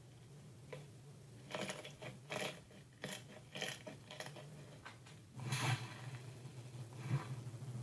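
Slime being squeezed and worked by hand, giving irregular short crackles. A low steady hum grows louder about five and a half seconds in.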